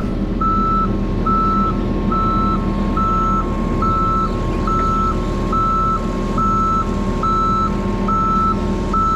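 Skid steer's backup alarm beeping steadily, a little more than once a second, as the machine reverses, over its diesel engine running.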